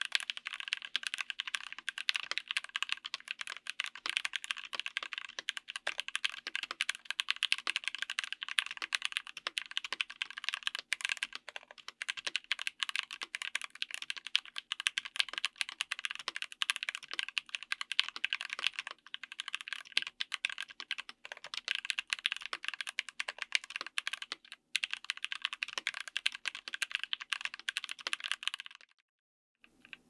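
Fast, continuous typing on a mechanical keyboard with stock, factory-lubed Gateron Oil King linear switches, GMK Hennessey double-shot ABS keycaps, an FR4 plate and a Tofu60 aluminium case. The keystrokes come in a quick, dense patter and stop about a second before the end.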